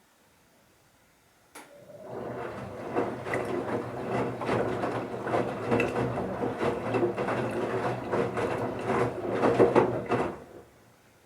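Bauknecht Super Eco 7615 washing machine turning its drum during the wash: after a click, the drum tumbles the wet towels for about nine seconds with a low motor hum and many small knocks, then stops.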